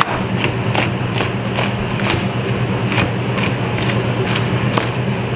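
Chef's knife chopping hot peppers on a plastic cutting board: a steady rhythm of sharp knocks, about two to three a second, over a steady low hum.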